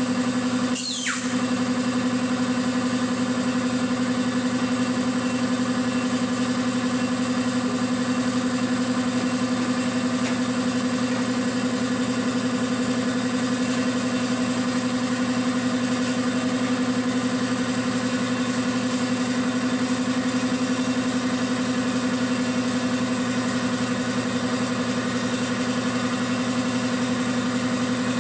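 Air compressor for a paint spray gun running steadily: a constant motor hum with hiss above it, briefly broken about a second in.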